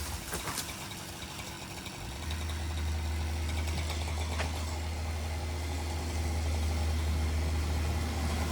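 An engine idling with a steady low hum that comes in about two seconds in and holds evenly, after a few faint clicks.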